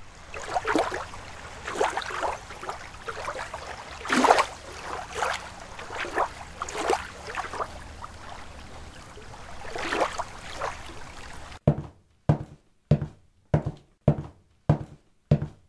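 Water sloshing and splashing in irregular surges, like wading through a river. About twelve seconds in it cuts off abruptly and a steady thumping beat begins, a little under two thumps a second.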